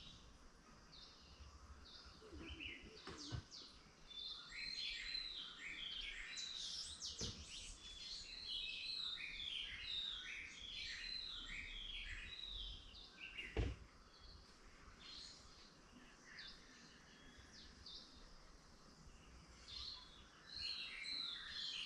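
Small birds chirping, with rapid runs of short falling notes that overlap, thinning out for a few seconds after the middle and picking up again near the end. A few sharp knocks sound among them, the loudest about two-thirds of the way through.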